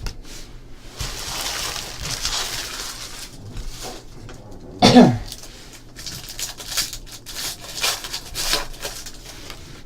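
Foil trading-card pack wrappers crinkling and tearing and the cards being handled, with a scatter of sharp crackles and clicks in the second half. About halfway through comes a short loud sound that falls steeply in pitch.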